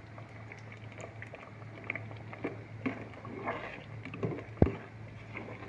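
A ladle stirring thick red bean porridge in a metal pot, with scattered soft scrapes and wet squelches and one sharp knock of the ladle against the pot a little past halfway, over a steady low hum.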